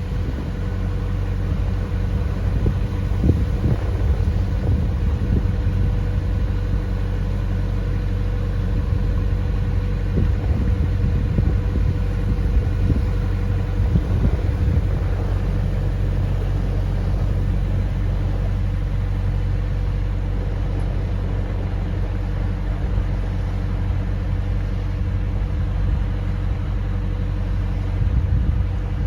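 Narrowboat's diesel engine running steadily while cruising: a constant low drone with a held tone and no change in pace.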